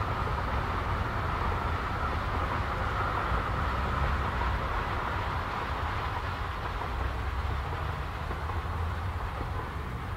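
Narrow-gauge steam train running along the line, a steady rumble that slowly grows fainter toward the end.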